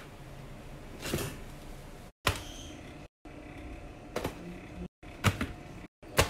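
Handling noises from plastic-wrapped food packs and produce: short crinkles and knocks as they are picked up and set down, about one a second. The sound cuts out abruptly several times.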